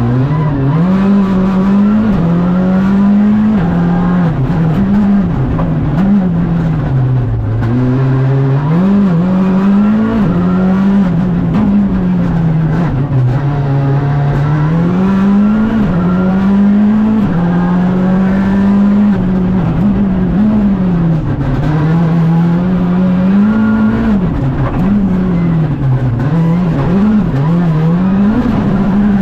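Škoda Fabia Rally2 evo's 1.6-litre turbocharged four-cylinder engine heard from inside the cabin, its pitch rising and falling again and again as the car accelerates, lifts and shifts gears on a rally stage.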